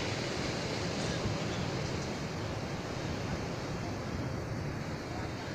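Steady rush of heavy surf breaking on the beach, with wind on the microphone.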